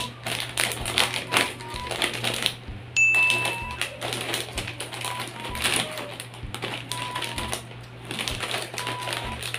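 Plastic snack bag of Moby caramel puffs crinkling and crackling in quick irregular clicks as it is snipped with scissors and pulled open by hand, over light background music.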